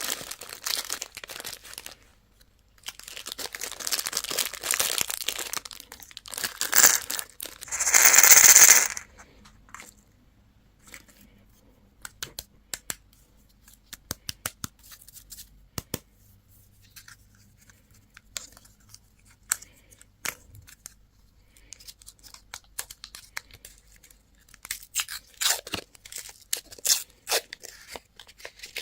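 Candy wrapping being torn open and crinkled: long stretches of tearing and rustling, loudest about eight seconds in, then scattered small crinkles and clicks, with another burst of crinkling near the end.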